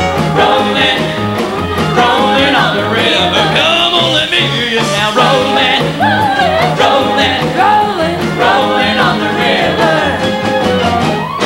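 Live band playing an upbeat rock-and-roll song, with a drum kit, electric guitar and a steady bass line, while male and female singers sing into microphones.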